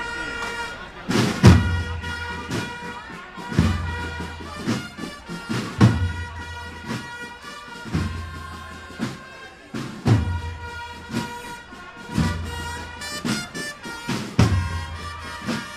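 Band music: wind instruments hold steady notes over a bass drum struck about every two seconds.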